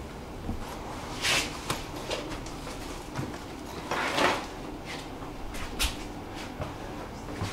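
Tram running, heard from aboard: a steady low rumble with scattered clicks and rattles, and two short louder hissing bursts, one about a second in and one about four seconds in.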